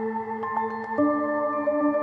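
Soft ambient background music: held tones that move to a new chord about a second in, with light tinkling notes on top.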